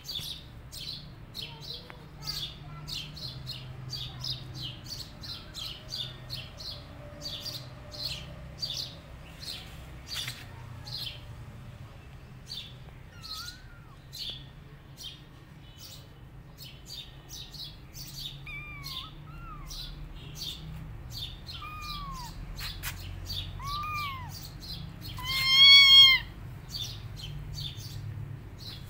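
A bird chirps over and over at about two chirps a second. In the second half, kittens mew several times with short rising-and-falling cries, and one louder, longer mew comes near the end.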